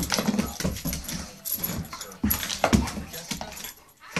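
A dog whimpering and grunting in short pitched bursts, with quick sharp clicks and scuffles of its claws on a hardwood floor.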